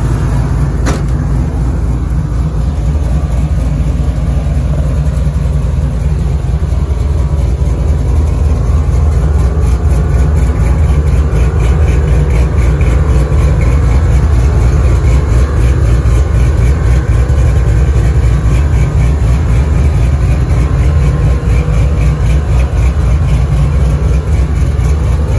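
Built LS 5.3 V8 idling steadily through its exhaust, deep and loud, a little louder from about eight seconds in.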